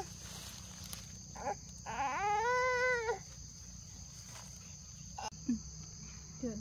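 A baby crying: one wail of about a second, rising and then held, with short whimpers before it and near the end. Under it runs a steady high insect drone.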